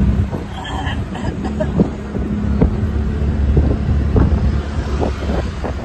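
Auto-rickshaw engine running steadily at speed, with wind rushing through the open cab and a few brief knocks.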